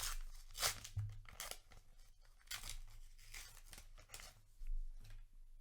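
A trading card booster pack's paper wrapper being torn open, in several short rasping tears and crinkles over the first four seconds.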